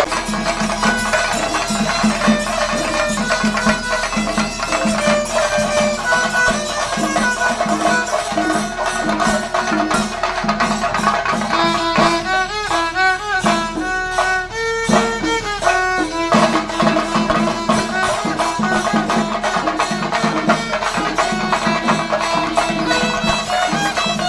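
Traditional folk music: a melody instrument plays over a steady held drone while drums keep a regular beat. About halfway through the drums drop out for a few seconds and the melody moves in clear stepped notes, then the beat returns.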